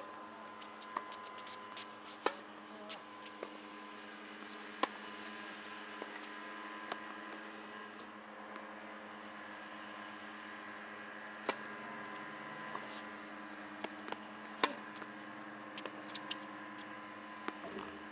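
A steady electrical hum with a few constant tones, broken every couple of seconds by sharp single pops of tennis balls being struck by rackets, some loud and some fainter.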